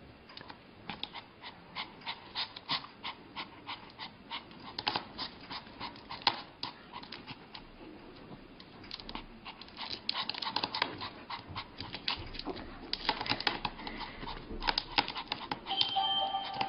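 Pomeranian panting and whimpering in quick short sounds, about two a second at first, then busier and louder in the second half: a small dog begging eagerly for a sausage. Music starts near the end.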